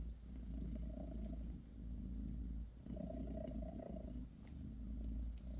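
British Shorthair mother cat purring steadily while her newborn kittens nurse, a low rumble that swells and fades with each breath.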